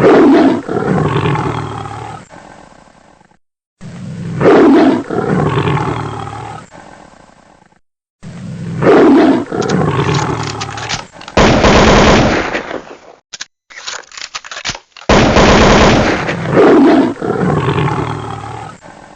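Lion roar sound effect, the same roar repeating about every four seconds. Around the middle, two stretches of fast rattling noise.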